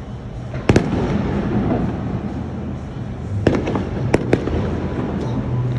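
Fireworks going off: one sharp bang under a second in, then a quick run of four bangs around the middle, over a steady crackling and rumbling background.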